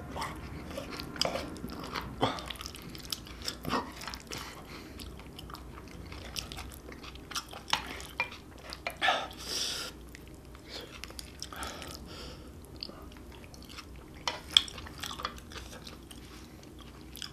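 Close-up chewing and wet mouth sounds of a person eating spicy stir-fried octopus with rice. Wooden chopsticks and a spoon click and scrape now and then against the bowl.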